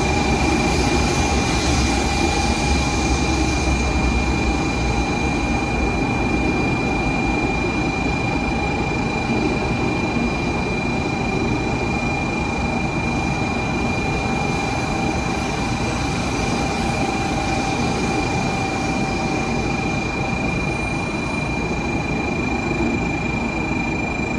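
Shinkansen train at the platform: a steady mechanical hum with high, even whines held throughout. The low rumble eases off a little after the first few seconds.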